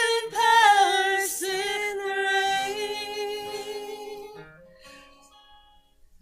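Women's voices singing the closing phrase of a gospel song, ending on a long held final note that fades out about four and a half seconds in.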